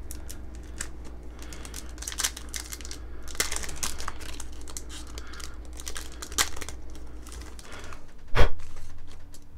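Foil wrapper of a Yu-Gi-Oh! Maximum Gold booster pack crinkling and crackling as it is handled and torn open by hand. A single sharp knock, the loudest sound, comes near the end.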